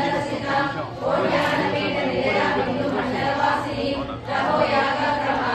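A group of women singing a Telugu devotional song together in unison, with short breaks between lines about one second and about four seconds in.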